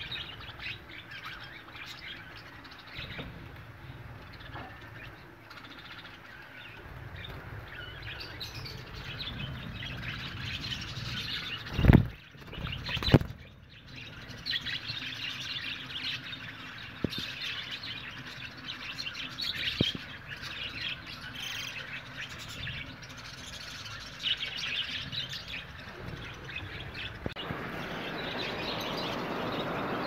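A colony of budgerigars chirping and chattering. Two loud thumps come about twelve and thirteen seconds in.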